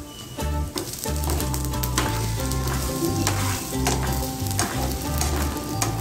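Food sizzling as it fries in a pan, stirred with a utensil that clicks and scrapes now and then, over background music.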